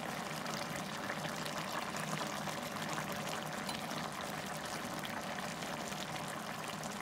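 Thick mutton curry bubbling and spitting in a pot as it cooks, a steady wet crackle of many small pops, while a wooden spatula stirs through it.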